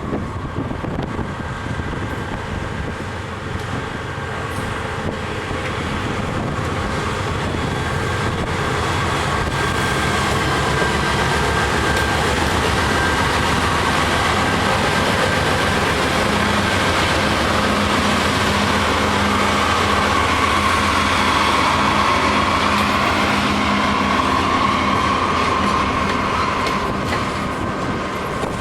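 Freight train rolling past, a steady rumble of wheels clacking over the rails that grows louder after the first few seconds. A high squeal swells in the second half.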